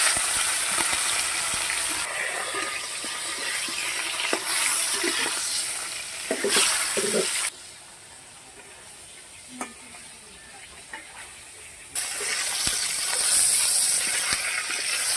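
Hilsa fish heads frying in hot oil in a wok, sizzling steadily, with a spatula stirring and knocking against the pan. The sizzle drops to a much quieter level for about four seconds in the middle, then comes back loud.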